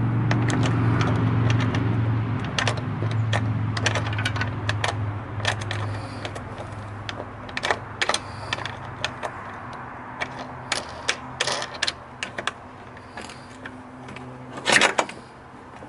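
Small plastic knobs and T-bolt hardware clicking and tapping irregularly as the knobs are fitted onto the bolts of a kayak rod-holder mount. A steady low hum sits under the first several seconds.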